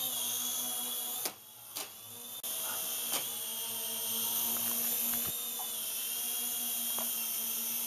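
YD-718 RC helicopter in flight: its small electric motors and twin side rotors give a steady high whine over a lower hum, wavering slightly in pitch. The sound drops away for about a second near the start, then comes back suddenly.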